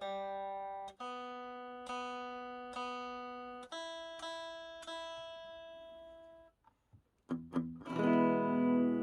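Electric guitar played clean and dry through a pedalboard: single picked notes about one a second, each ringing and fading. After a short pause about seven seconds in, louder strummed chords ring on.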